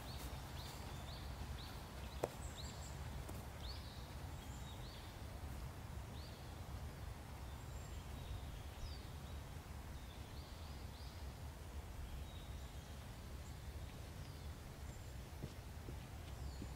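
Small birds chirping, short calls repeated every second or so and several in quick succession early on, over a steady low background rumble. One sharp click about two seconds in.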